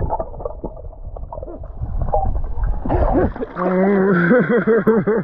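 Muffled water sloshing and gurgling with the microphone under the water surface. From about three and a half seconds in, a person makes a wavering, wobbling vocal sound.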